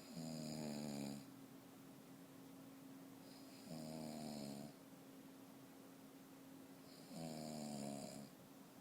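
A person snoring: three snores about three and a half seconds apart, each lasting about a second.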